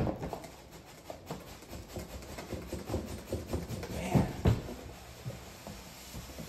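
Large cardboard box being slid up and off its foam-packed contents: cardboard scraping and rustling, with a couple of dull knocks about four seconds in.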